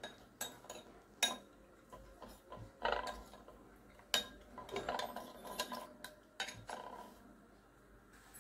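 A spoon stirring custard powder and water in a small bowl, clinking and scraping against the bowl at uneven intervals.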